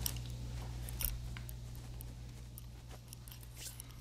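Quiet room tone with a steady low hum and a few faint, sharp clicks.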